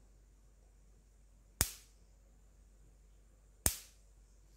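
High-voltage spark snapping across the gap at the ignition coil's output lead, twice, about two seconds apart: the regular pulses of a homemade SCR electric fence energizer firing.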